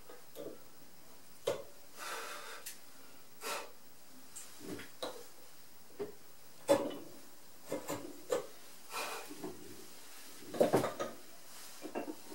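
Hand-pushed carving chisel paring thin shavings from very hard keyaki (Japanese zelkova) wood: a series of short scraping cuts, separated by a few sharp clicks and knocks of the tool on the wood.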